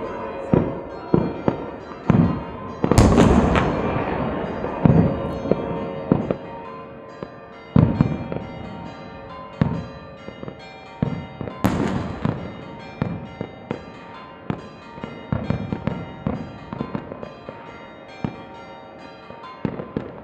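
Fireworks going off with irregular sharp bangs and crackles, the two loudest blasts about three seconds in and just before twelve seconds, over church bells ringing without a break.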